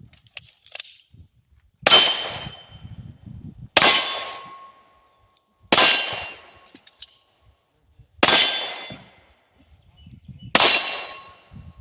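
Five gunshots, about two seconds apart, each with a steel target ringing as it is hit.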